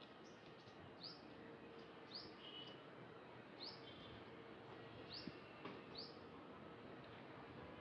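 Faint, short high chirps of a small bird, repeated about once a second or so, over a quiet background with a faint steady hum.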